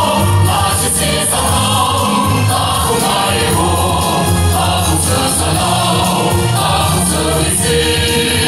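A male soloist and a mixed choir singing through microphones over a steady amplified band accompaniment.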